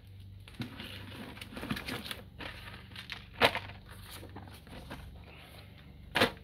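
Items being packed into a clear plastic storage tub: plastic bags of parts rustling, with magazines, a blister pack of clamps and a metal tin set down. Scattered knocks, the loudest about three and a half seconds in and another near the end.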